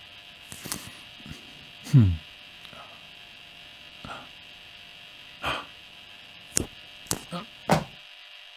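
A steady hiss-hum underneath, a short falling "hmm" about two seconds in, then several light knocks and clicks of smartphones being put down on a desk in the last few seconds.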